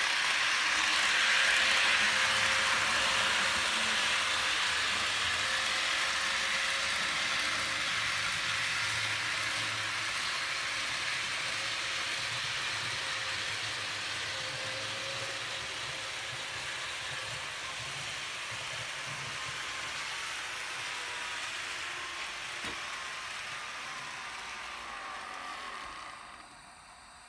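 HO-scale model electric locomotive (Roco SNCF BB 15000) pulling a train of four-axle freight wagons along the layout's track: a steady whir of wheels rolling on the rails with a faint motor hum. It is loudest in the first couple of seconds, slowly fades, then drops off sharply near the end.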